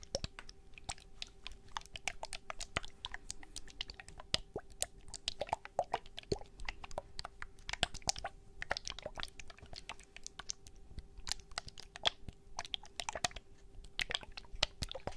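Fingernails tapping and clicking on the hard plastic case of a Toxic Waste Slime Licker candy, close to the microphone: a dense, uneven run of sharp clicks.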